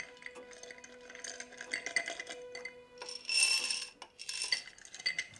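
Ice cubes clinking and rattling against a glass tumbler as a drink is poured and mixed, with light ticks throughout and a louder burst of ringing ice rattle about three seconds in.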